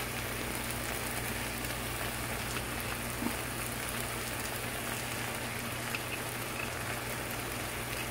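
Pan of eggplant and tomato sauce sizzling steadily on the stove, with a faint low hum beneath it.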